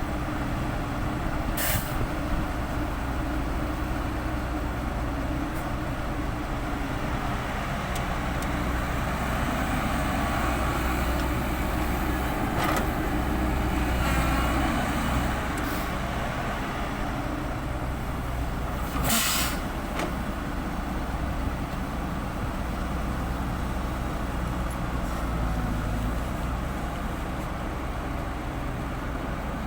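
Heavy diesel engines of an excavator and dump truck running steadily with a low, even drone. Two short, sharp hisses break in, one near the start and a louder one about two-thirds through.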